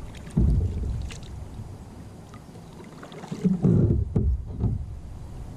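Knocks and rumbling bumps against the hull of a Lifetime Tamarack Pro 103 sit-on-top kayak, in two bursts: about half a second in and again from about three and a half seconds in.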